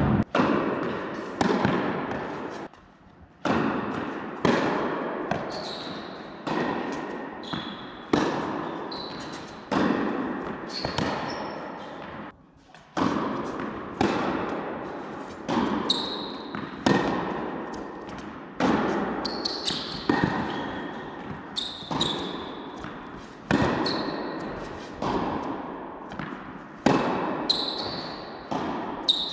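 Tennis ball struck by rackets and bouncing on an indoor court, about one hit or bounce a second, each ringing out in an echoing hall, with short high squeaks in between.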